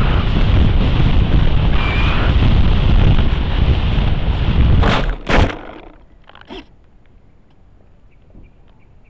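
Steady air rush on the onboard camera of a radio-controlled model Cessna flying low over grass. About five seconds in come two sharp knocks half a second apart as the plane strikes the ground and noses over. After that there are only faint small rustles, the propeller stopped.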